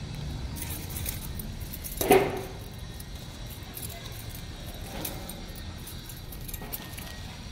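Thin plastic bag crinkling and rustling as a kitten tugs at it, with one louder, sharper crackle about two seconds in.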